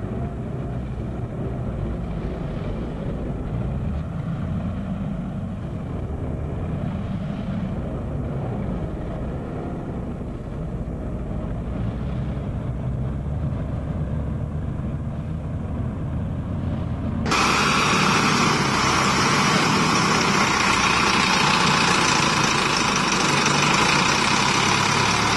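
Heavy diesel engines running under load as a tractor tows a tanker truck through deep mud, a low steady rumble. About two-thirds of the way through, the sound changes abruptly to a louder, hissier tractor engine noise: the scene switches to a Valtra BM100 tractor in a field.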